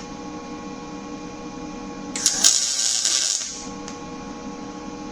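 Steady electrical hum in a machine shop, broken in the middle by a hissing scrape that lasts about a second and a half.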